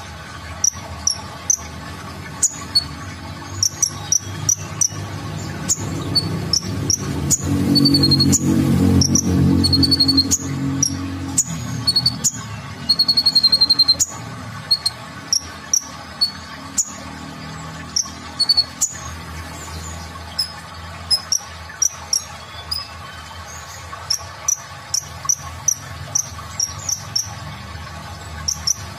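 Male Van Hasselt's sunbird (kolibri ninja) singing: a busy run of high, thin chirps, several a second, with a few short high trills. A low rumble sits under the song from about six to twelve seconds in.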